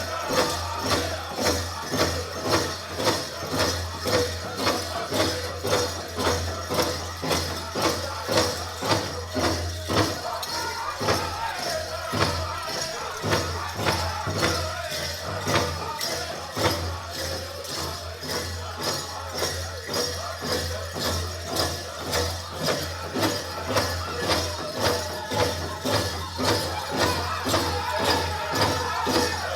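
Powwow drum group singing a song over a steady big-drum beat, about two strokes a second.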